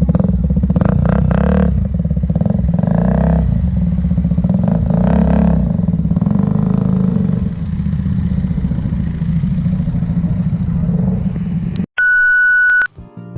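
KTM RC 200's single-cylinder four-stroke engine, through an aftermarket Akrapovic hex-tip exhaust, idling and blipped up in short revs three times, then once more lightly. Near the end the engine sound cuts off and a loud steady beep sounds for under a second.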